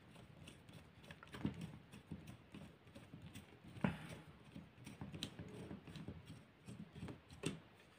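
Screwdriver tip clicking and scraping against the metal carbon-brush holder of a vacuum cleaner motor while the carbon brushes are pried out: irregular light clicks, with a few sharper knocks.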